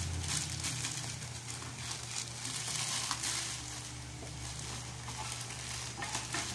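Shipping packaging being torn open and handled by hand: irregular crinkling and crushing of plastic and paper wrapping, over a steady low hum.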